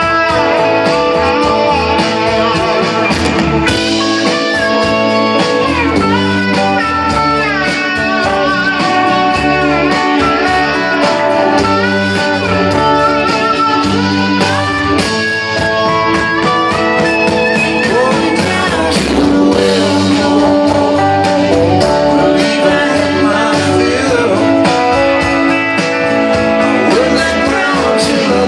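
Live rock band playing through the PA: electric guitars, bass and drums, with a guitar line sliding and bending between notes.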